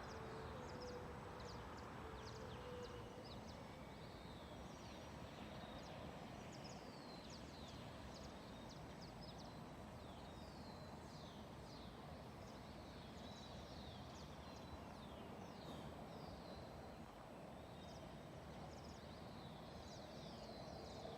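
Many small birds chirping in quick, high, often falling notes over a faint steady hum of distant city noise.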